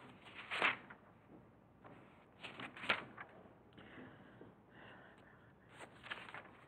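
Three brief soft rustling sounds, about half a second in, near three seconds and near six seconds, over faint room noise.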